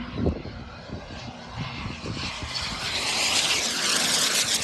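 Turbine-powered RC jet flying past, its hissing jet noise swelling to a peak near the end. There is a short thump just after the start.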